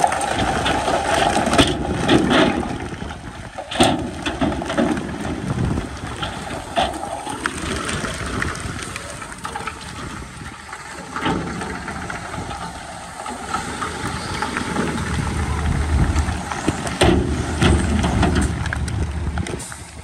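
Diesel engine of heavy earthmoving machinery running under load, with frequent sharp clanks and knocks over a rough rumble; the low engine rumble swells in the last few seconds.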